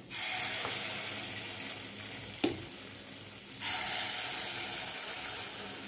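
Idli-batter bonda mix dropped by the spoonful into hot oil in an aluminium kadai: the oil sizzles up at once and slowly eases, then flares again about three and a half seconds in as another portion goes in. A single sharp tick about halfway through.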